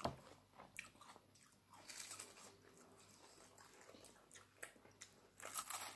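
Faint close-up crunching and chewing of a crisp cracker in the mouth, with a louder crunch near the end.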